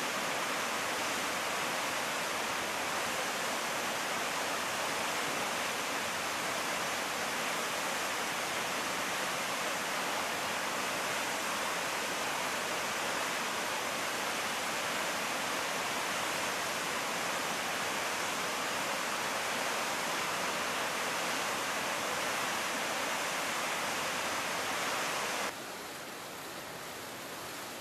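Torrent of water rushing down a concrete dam spillway, a steady dense rush. Near the end it cuts off abruptly to the quieter churning of a large whirlpool.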